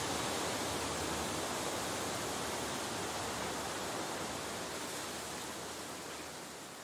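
Steady, even rushing hiss, like wind or running water, with no tune, fading out over the last couple of seconds.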